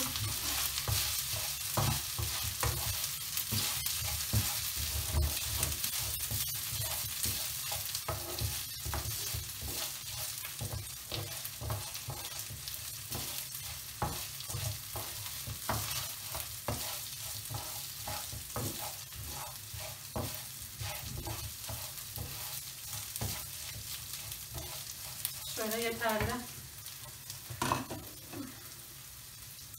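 Rice toasting in butter and oil in a frying pan, sizzling steadily while a wooden spoon stirs it, scraping and knocking against the pan. The stirring stops near the end, leaving a quieter sizzle.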